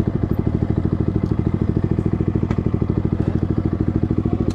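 Yamaha MT-15's single-cylinder engine running steadily at low revs through an SC Project full-system aftermarket exhaust, with an even, rapid beat.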